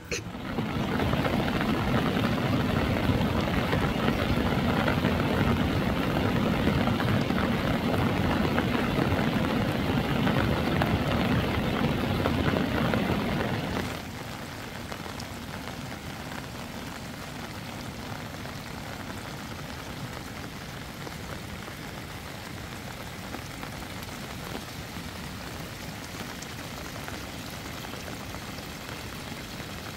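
Steady rain falling, loud for about the first half. About halfway through it drops abruptly to a quieter, even hiss of rain.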